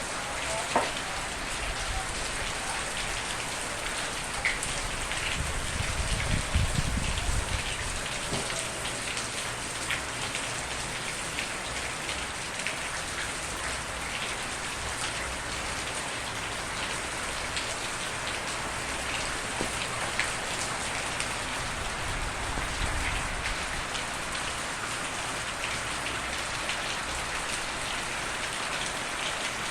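Steady rain falling on surfaces, with individual drops ticking through it. A brief low rumble swells about six seconds in.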